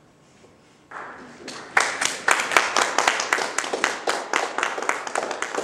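Audience applause rising about a second in, with one pair of hands clapping loudly and steadily close to the microphone at about four claps a second.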